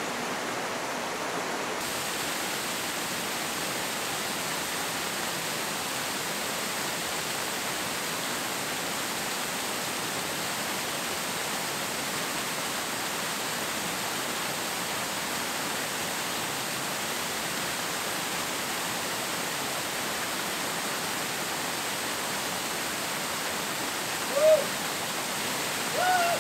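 Steady rush of a waterfall pouring into a rocky pool, following a short stretch of a shallow stream over stones; near the end a man's voice gives two short cries, the second longer and falling in pitch.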